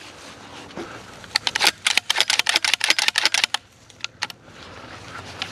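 A rapid clatter of sharp clicks, about twenty in a little over two seconds, starting about a second in.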